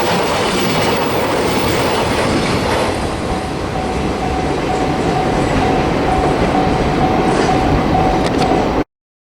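A train passing close by over a level crossing, its wheels clacking and rumbling on the rails. From about three seconds in, the crossing's warning bell rings as a repeating tone over the train noise. The sound cuts off abruptly near the end.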